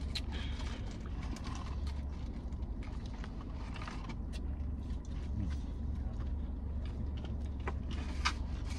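A person chewing and biting into a chicken sandwich, with wet mouth smacks and short clicks scattered throughout and two sharper smacks near the end, over a steady low hum inside the car.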